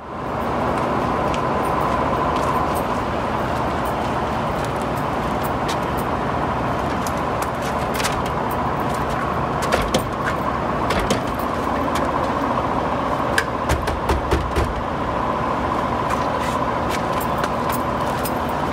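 Steady outdoor hum of traffic and building machinery with a faint steady whine. Scattered clicks and knocks come through it, from a steel exit door's handle being tried.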